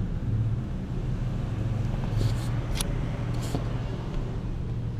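Steady low rumble with a few short crackles near the middle.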